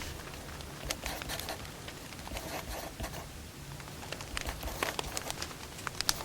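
Wood fire crackling: irregular pops and snaps over a steady low hiss, with a couple of sharper pops near the end.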